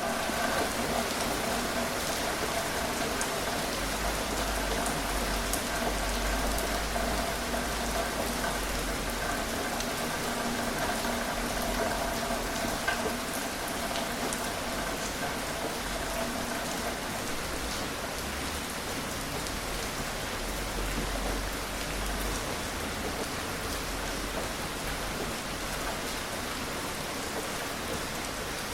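Steady moderate rain falling on a surface, an even hiss with scattered individual drops ticking through it.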